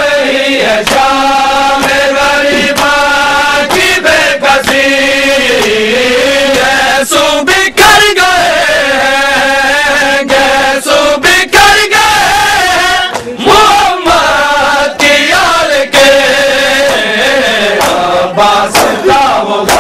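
Men chanting an Urdu noha, a Shia Muharram lament, in unison to a held, wavering melody. Sharp slaps of matam (chest-beating) break through the chant at irregular moments.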